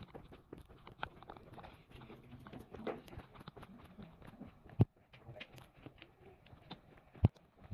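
Footsteps and shuffling on a paved walking trail, a busy run of small irregular clicks, with two sharp knocks about five and seven seconds in.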